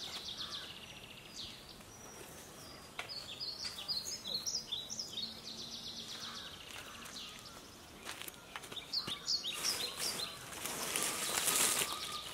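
Small birds chirping and calling in quick high notes. From about ten seconds in, a louder crackling rustle of dry undergrowth and leaves as a person walks through the brush.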